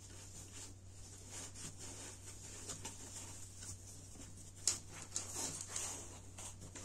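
Fleece and plush fabric rustling and rubbing as a foam slab is pushed into a fabric pocket and the cover is smoothed down by hand. There is a series of soft brushing strokes, a few louder ones a little past the middle, over a low steady hum.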